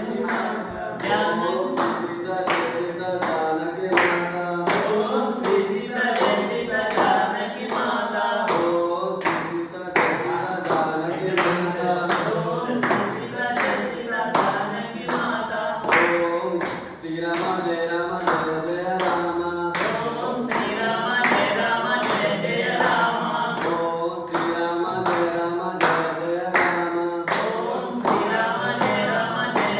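A group of men singing a Hindu devotional song (bhajan) together without instruments, keeping time with steady hand claps about twice a second.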